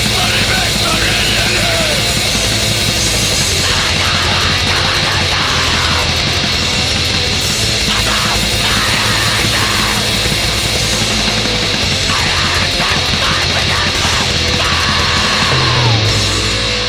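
Black metal music: a dense wall of distorted guitars and drums with harsh yelled vocals in places. Near the end the dense sound drops away to a sparser passage.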